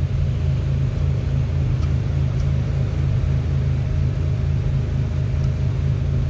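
Steady low mechanical rumble of a running motor, with a few faint ticks.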